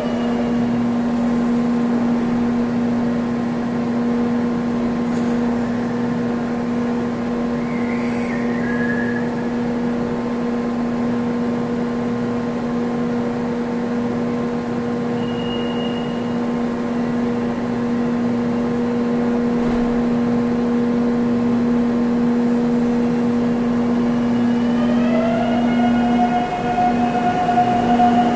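Madrid Metro train standing at the platform, its onboard equipment giving a steady electric hum. Near the end a whine rises in pitch and then holds steady.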